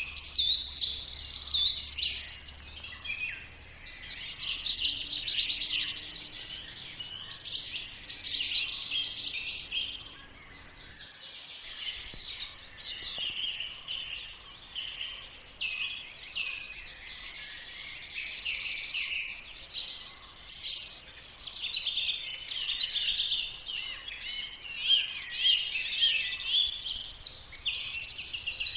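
Many birds singing and calling at once, a dense chorus of overlapping chirps and short trills: a morning bird chorus.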